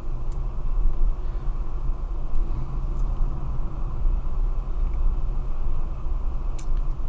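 A car driving along a city avenue, heard from inside the cabin: a steady low engine and road rumble, with a few faint ticks.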